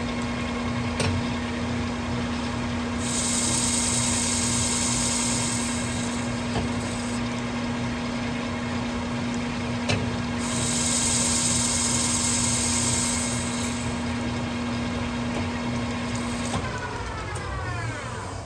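Metal lathe running with a wheel hub spinning in the chuck, a steady hum throughout. Two stretches of hiss, each several seconds long, come and go while the tool is at the hub's face. Near the end the spindle shuts off and winds down in falling tones.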